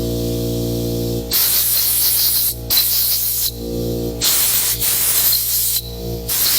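Short blasts of compressed air hissing in about four bursts, the first about a second and a half in, blowing sandpaper grit off freshly cleaned spark plugs. A steady hum runs underneath.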